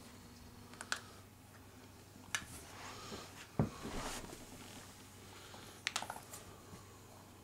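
English bulldog puppy playing tug of war with a rope toy: scattered short clicks and scuffs from the pulling and shaking. The loudest is a low thump about three and a half seconds in.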